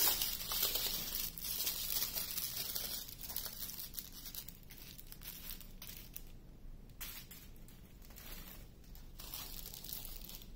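Small clear plastic bags of diamond painting drills crinkling and rustling as they are handled and set down, loudest over the first few seconds, then in brief intermittent rustles.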